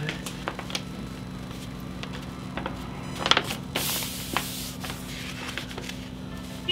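A large sheet of paper rustling and sliding as hands smooth it flat over a heat press platen, with a louder rustle around the middle, over a steady low hum.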